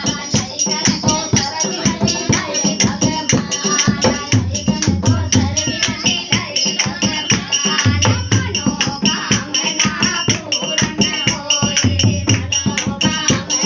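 Music with a fast, even rattle-like percussion beat and a low bass figure that comes back about every three and a half seconds.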